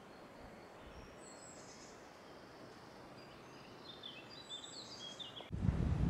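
Small birds chirping over a faint steady background hiss, the short high calls coming thicker from about four seconds in. Near the end a sudden loud rush of wind on the microphone takes over.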